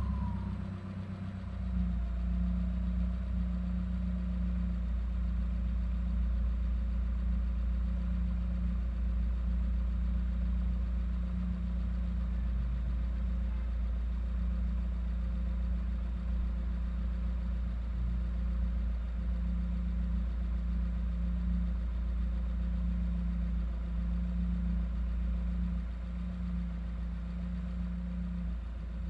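Subaru WRX's turbocharged flat-four running with a steady, low drone at light load. Over the first few seconds a faint turbo whistle falls in pitch and fades as the turbo spools down.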